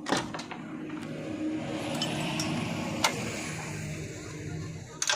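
A diesel engine running at a low, steady speed, with a few sharp mechanical knocks: several just after the start, one about three seconds in, and another near the end.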